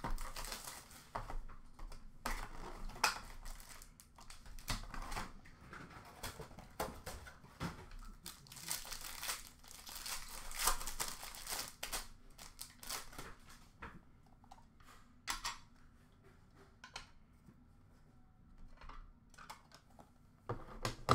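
Cardboard card box being torn open and foil-wrapped trading card packs crinkling as they are handled, with busy rustling and tearing for most of the first two-thirds. After that come scattered taps, and a sharp click near the end.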